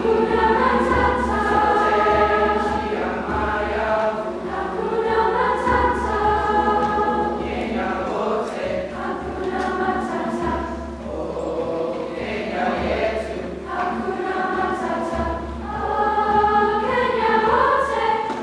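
Seventh-grade mixed choir of boys and girls singing in parts, several voices in harmony at once, with phrases changing every second or two.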